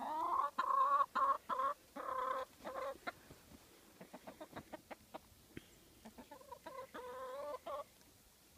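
Chickens calling: loud drawn-out squawking calls in several pulses over the first three seconds, then a run of short quick clucks, and another drawn-out call about six and a half seconds in.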